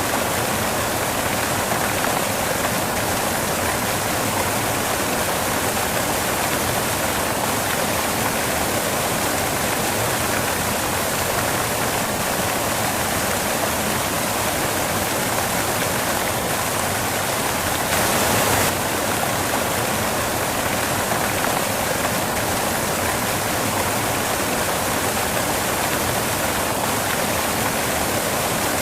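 Steady white noise: an even rushing hiss with no rhythm or tones, briefly a little louder about eighteen seconds in.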